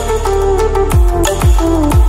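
Electronic background music: deep bass kicks that drop sharply in pitch, three in quick succession in the second half, over a steady bass and a sliding lead melody.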